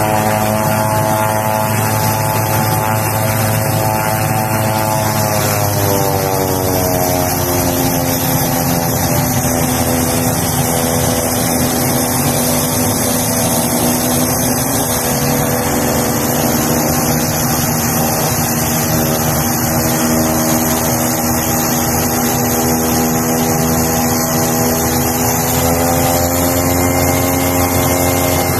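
Beechcraft King Air F90's twin Pratt & Whitney PT6A turboprops and propellers running on the ground shortly after a cold-weather start: a steady turbine whine over propeller drone. About five seconds in the pitch drops and settles lower, then rises slightly again near the end.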